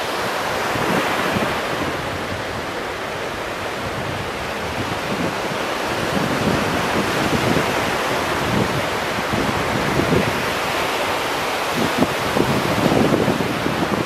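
Small ocean waves breaking and washing up the shore, a steady rush of surf that swells and eases, louder near the end, with wind buffeting the microphone.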